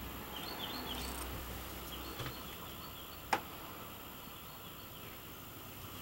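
Steady background noise with small birds chirping in a quick series of short high notes over the first second and a half, and one sharp click about three seconds in.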